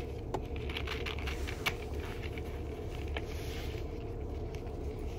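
Light paper rustles and a few soft taps as a paper dust jacket is folded around a hardcover book's boards, over a steady low hum.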